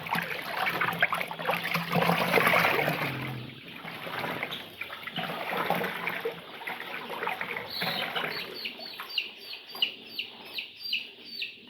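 Water sloshing and splashing as vaccine is stirred into drinking water. From about eight seconds in, young layer chicks peeping repeatedly, short falling chirps about three a second.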